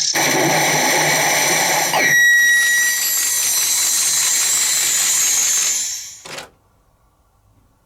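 CR Tsurikichi Sanpei pachinko machine running: a dense metallic clatter of steel balls and machine noise, with a brief steady beep about two seconds in. The sound cuts off abruptly about six seconds in.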